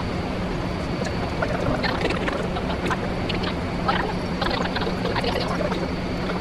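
Steady vehicle running noise with a low hum throughout. Scattered light clicks and rattles come in from about a second and a half in.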